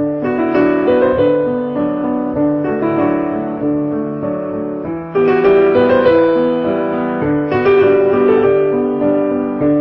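Piano music: a run of notes that gets suddenly louder about five seconds in as a new phrase begins.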